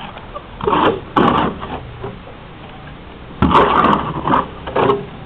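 Steel mason's trowel scraping and scooping wet cement mortar out of a wheelbarrow into a metal bucket, in several short rough scrapes.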